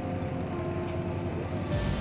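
Background music with sustained notes; near the end a deep bass comes in and the music grows fuller.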